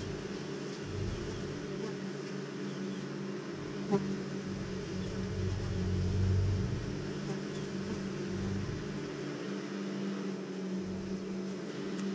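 Honeybees buzzing at their nest on a tree trunk: a steady, dense hum of many wingbeats. A single sharp click about four seconds in.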